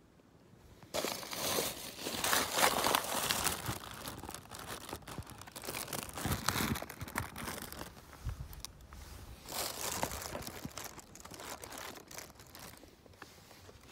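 Close handling noise: a jacket's fabric and hands rubbing and brushing against the phone as it is set up and positioned, a crinkly rustle in uneven bursts that begins about a second in and is loudest early on and again around the middle.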